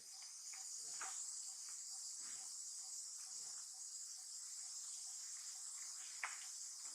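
Steady high-pitched insect chorus, with faint scattered small rustles and a sharp click about six seconds in.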